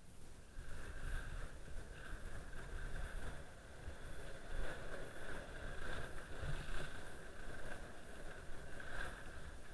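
Wind buffeting a GoPro's microphone during a downhill ski run, with skis hissing and scraping over packed snow. It swells about half a second in as the skier picks up speed.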